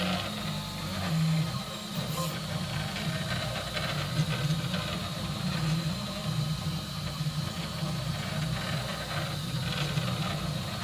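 CoreXY 3D printer printing: its stepper motors hum in short tones that shift in pitch every fraction of a second as the print head carriage moves back and forth on LM8UU linear ball bearings, with a faint steady high tone above.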